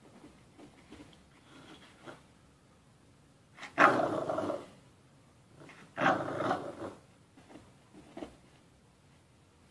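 American Bully dogs growling in play during a tug-of-war over a rope toy: two louder growls about four and six seconds in, with shorter, fainter growls between them.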